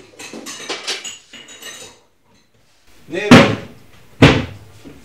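Clattering of small objects being handled, a short silence, then two loud sudden thumps about a second apart, each ringing out briefly.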